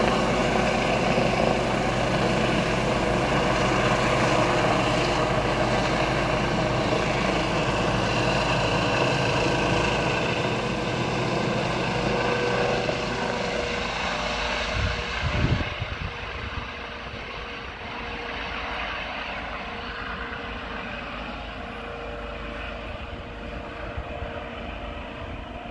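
Air rescue helicopter's rotor and turbine noise close overhead, then fading steadily as it climbs away, with a brief low rumble on the microphone about halfway through.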